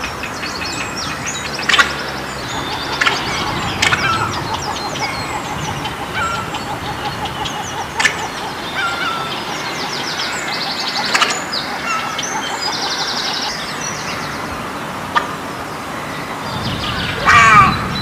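Egrets calling: many overlapping calls, with short sharp calls every few seconds and a louder call near the end.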